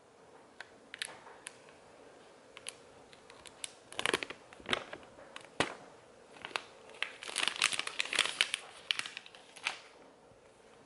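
The seal of an iPhone 12 Pro Max box being torn off and the packaging handled: crinkling and tearing, denser about four seconds in and again from about seven to nine seconds in, with scattered sharp ticks between.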